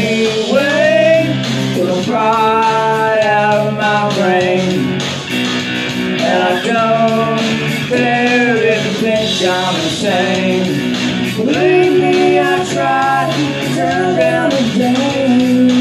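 A man singing while strumming chords on a single-cutaway electric guitar.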